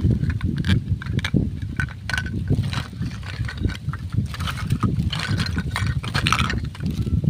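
Hollow plastic toy fruit and vegetable pieces clicking and clattering against each other as hands shuffle and pick them up, with many short sharp knocks over a steady low rumble.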